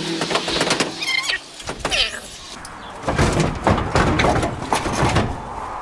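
A 1980 Ford F-350's radiator being worked loose in its engine bay: metal scraping and knocking, short squeaks about one and two seconds in, then a run of rattling clanks in the second half.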